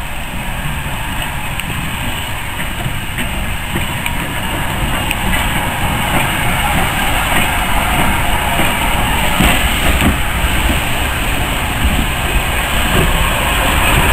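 S&DJR 7F 2-8-0 steam locomotive 53809 running slowly tender-first along the track, its wheels clicking over the rail joints. The rumble grows louder as it draws near and passes close by.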